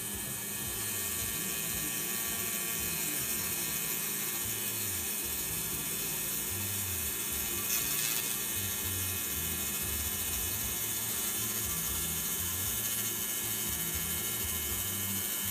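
Pulsed laser cleaning machine working along a weld seam: a steady high hiss and whine made of many fine tones, with one brief sharper crack about eight seconds in.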